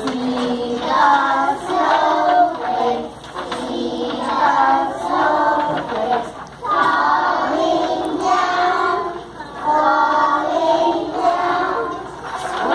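A group of young preschool children singing a song together, in phrases of a few seconds with short breaks between them.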